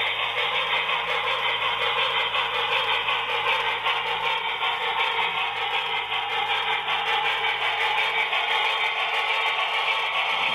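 Electric model railway locomotive running along the track: a steady mechanical running sound with a low motor hum underneath.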